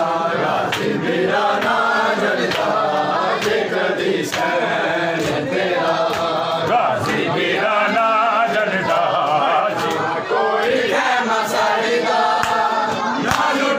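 Crowd of men chanting a Muharram noha (mourning lament) together, with sharp slaps of hands on bare chests (matam) every second or two.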